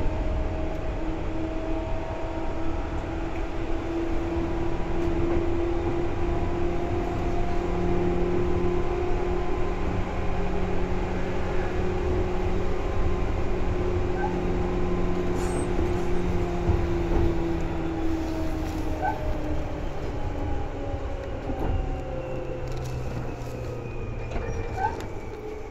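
Seibu 2000 series electric train running, heard from inside the car: a steady rumble of wheels on rail under a whine from the motors and gears. The whine holds its pitch, then falls slowly over the last third as the train slows.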